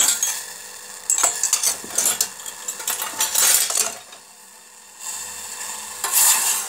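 A metal spoon stirring sugar syrup in a stainless steel saucepan, scraping and clinking against the pan in irregular strokes, with a quieter pause about four seconds in.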